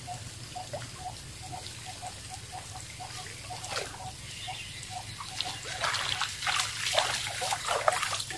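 A hooked snakehead thrashing and splashing at the water's surface as it is reeled in; the splashing grows louder and busier over the last few seconds. A steady, light ticking, about three ticks a second, runs underneath.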